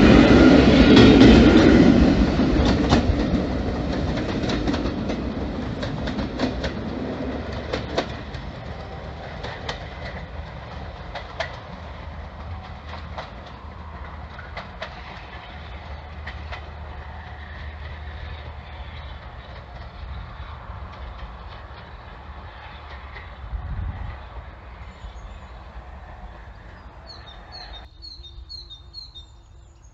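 Train of passenger coaches running past, wheels clicking over the rail joints, the rumble fading steadily as it draws away. Near the end, after a sudden drop in level, faint bird chirps.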